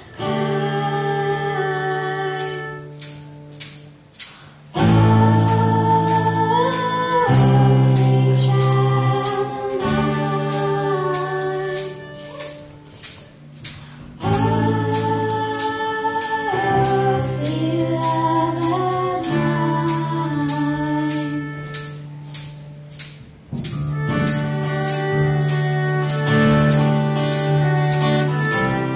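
A small string band playing a song live, with girls' voices singing over acoustic guitar, electric guitar and fiddle. A tambourine keeps a steady beat of about two strikes a second, starting about two seconds in.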